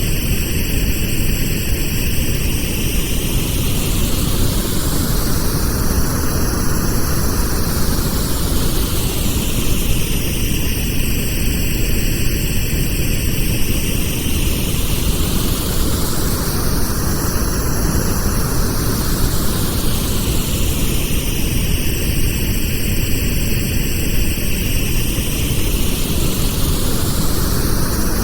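Pink noise for tinnitus masking: a steady hiss whose tone slowly sweeps up and down, repeating about every eleven seconds.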